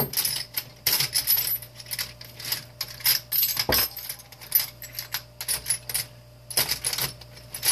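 Irregular run of sharp metallic clinks, rattles and knocks as metal and plastic parts of a space heater are handled and pried at during disassembly.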